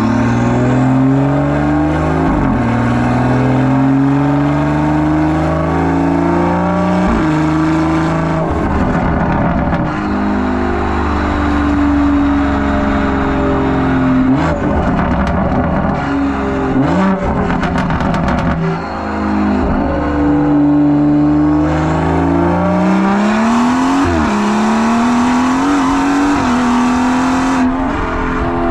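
2017 BMW 340i's B58 turbocharged inline-six heard at the tailpipe through a catless downpipe and open exhaust valves, accelerating at light throttle and shifting up several times, its pitch rising and then dropping at each shift. A run of exhaust crackles comes around the middle.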